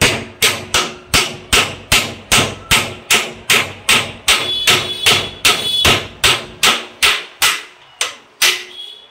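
Hammer blows on a steel rod held upright on a sewing machine's arm, driving the wheel bush fully home: a steady run of about two and a half strikes a second, each with a short metallic ring, stopping near the end.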